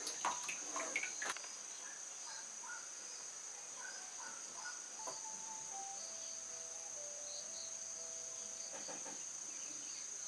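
Insects trilling in one steady, high, unbroken chirr. A few sharp clicks of a ladle against the pot come in the first second or so.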